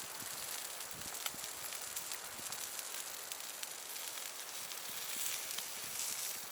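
Wood fire burning in a firepit, crackling with scattered small pops over a steady hiss.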